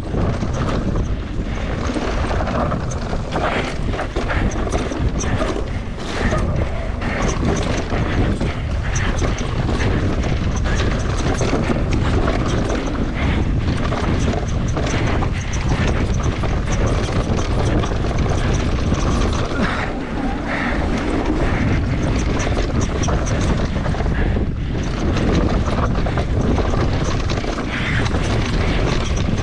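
Mountain bike descending a dirt trail: wind on the microphone and tyres on the dirt, with frequent short knocks and rattles as the bike runs over rocks and roots.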